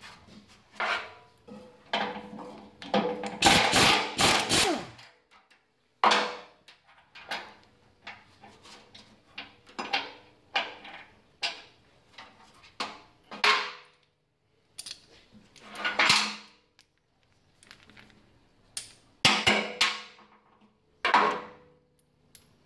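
Irregular metallic clanks and knocks on the steel housing of a vaneaxial fan as it is worked on by hand, some ringing briefly. A quick run of rapid knocks comes about three to five seconds in.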